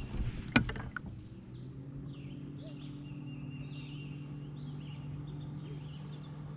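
A songbird calling a string of short chirps, about two a second, over a steady low hum. A sharp knock sounds about half a second in.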